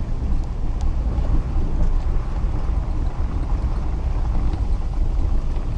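A vehicle driving on a dirt track in heavy rain, heard from inside the cab: a steady low rumble of the vehicle under a dense hiss of rain, with a few faint ticks of drops.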